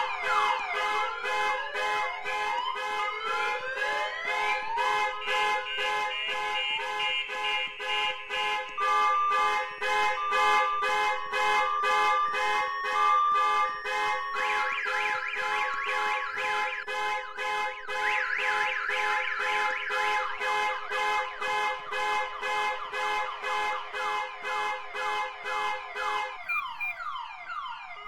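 Several car alarms sounding at once, overlapping as they cycle through their patterns of fast pulsing, rising whoops, steady tones and short beeps. Near the end one of them stops.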